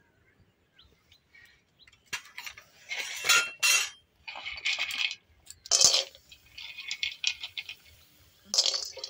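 Hard dried lentil dumplings (bori) dropped into a metal kadai with a little oil, making a run of sharp clinks and knocks against the pan that starts about two seconds in.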